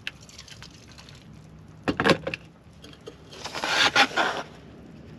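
Hot water poured from a stainless electric kettle into a plastic measuring cup, then a few sharp knocks of the kettle set down on a wooden table about two seconds in. About three and a half seconds in comes a loud rustle lasting about a second as the foil meal pouch is handled.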